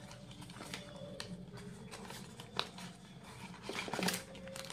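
Cardboard product box being handled and pulled open by hand: faint rustles and small scattered clicks, with one sharper click a little past halfway and a louder rustle near the end.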